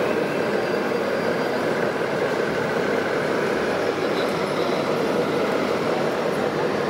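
Steady, even background din of a busy exhibition hall, with no single sound standing out.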